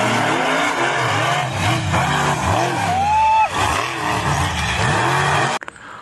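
Monster truck engines revving hard under load as two trucks race up a dirt hill, the engine note rising and falling. It cuts off abruptly near the end.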